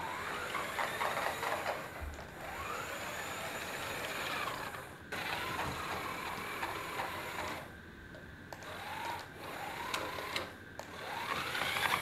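Small DC gear motors of a remote-control cardboard auto rickshaw whining as it drives. The whine rises and falls in pitch as the rickshaw speeds up and slows, several times over, with brief breaks between runs.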